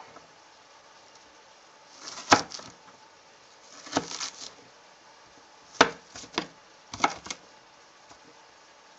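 Kitchen knife chopping an onion on a wooden cutting board: about seven separate knocks of the blade on the board, spaced unevenly and coming quicker in the second half.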